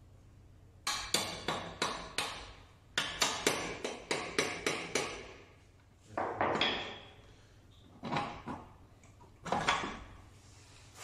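Metal parts of a Peugeot 103 moped knocking and clattering as the engine is worked into the frame by hand: two quick runs of sharp knocks, about four a second, then a longer clatter and two single knocks near the end.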